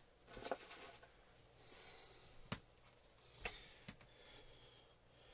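Mostly quiet room with three light, sharp clicks of objects being handled, about two and a half, three and a half and four seconds in.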